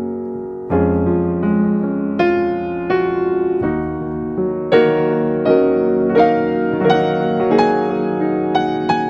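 Background music: gentle piano with notes struck about every half second over sustained chords.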